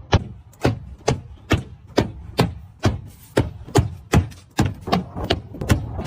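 A steady series of sharp knocks, about two a second, each dropping quickly in pitch.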